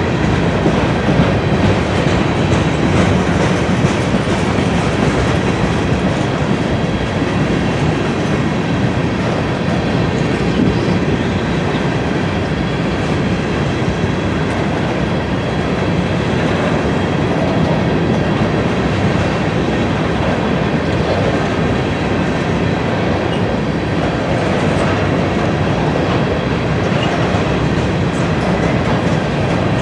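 Freight cars of a grain train rolling steadily past at close range: continuous wheel-on-rail rumble with a run of clicks from the wheels over the rail joints.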